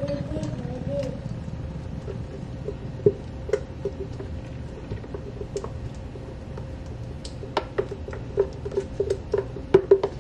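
Thick blended green mixture being poured and knocked out of a blender jar into a stainless-steel bowl of ground meat: a series of soft plops and knocks, scattered at first and coming quickly near the end, over a low steady hum.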